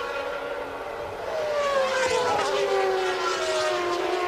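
Formula One race cars' high-revving engines on track, their pitch falling steadily about a second and a half in, with more than one engine note overlapping.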